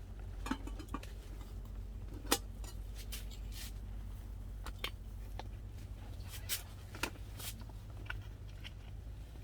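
Scattered light clicks and taps of small hard items being handled, the sharpest about two seconds in, over a steady low hum.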